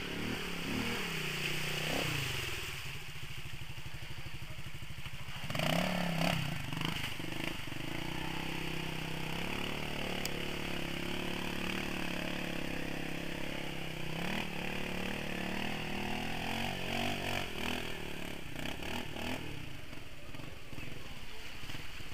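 Quad bike engines running as the machines drive through mud and standing water, the revs rising and falling several times.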